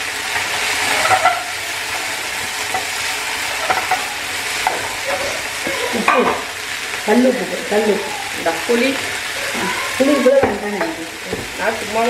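Mint, coriander and curry leaves sizzling in a little oil in a small steel pot while being stirred. The steady hiss is the leaves' moisture cooking off as they wilt and shrink.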